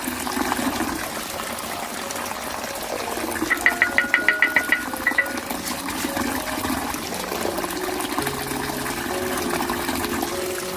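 Background music carrying a melody of short held notes, with a quick run of about nine bright ticks a little over three seconds in. Under it runs a steady rushing noise.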